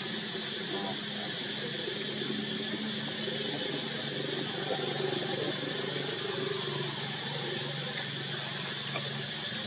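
Steady outdoor background: a continuous high hiss over a low steady hum, with no distinct event.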